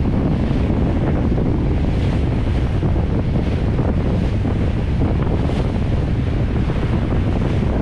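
Heavy wind buffeting the microphone, with water rushing and splashing past the bow of a motorboat running at speed.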